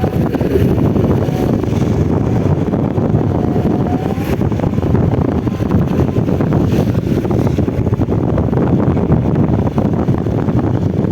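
Wind buffeting the microphone: a steady, loud low rumble that rises and falls unevenly.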